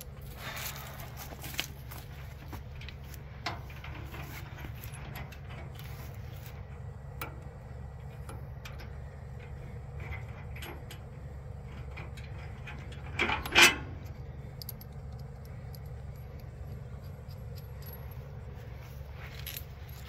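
Metal clinks and knocks from handling the steel frame and loose parts of a portable band sawmill, with one loud clank about two-thirds of the way through, over a steady low rumble.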